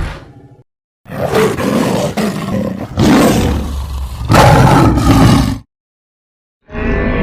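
Roaring sound effects of a prehistoric animal: three loud, rough roars in close succession, each about a second or so long, after a brief gap. Near the end, after another pause, a different call with a clear, wavering tone begins.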